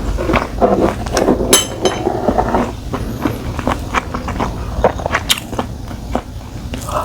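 Close-miked chewing of spicy stir-fried webfoot octopus: a run of wet mouth smacks and short sharp clicks as the chewy octopus is bitten and chewed.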